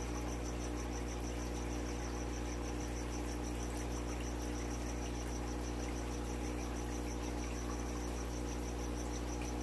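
Steady low hum under a high, rapid, evenly pulsing chirp that goes on without a break.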